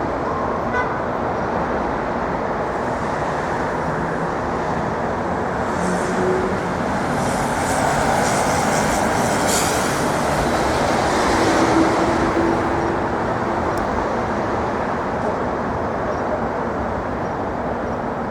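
Steady city street traffic, swelling as a vehicle passes about halfway through.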